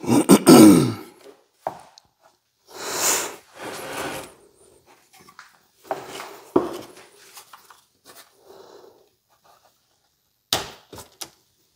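Intermittent handling noise from adjusting a router on a wooden flattening sled, with no motor running. A loud scrape with a falling creak comes near the start, then a few rubbing swishes and a quick run of clicks near the end.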